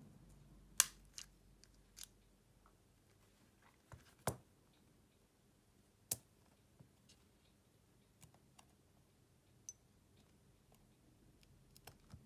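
Scattered sharp clicks and taps of small repair tools and parts being handled on a Samsung Galaxy S10+ during a screen replacement. There are about eight separate clicks, the loudest just under a second in, over faint room tone.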